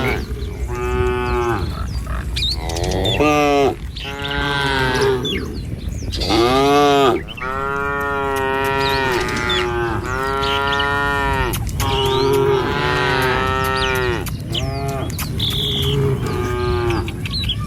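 Several cattle in a herd mooing one after another, about eight or nine long calls, some overlapping, with birds chirping faintly in between.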